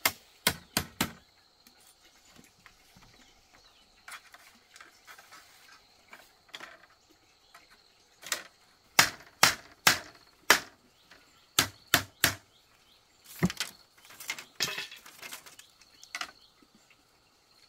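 Chopping on wood: sharp, hard knocks in short runs of three or four, with quieter tapping and rustling between.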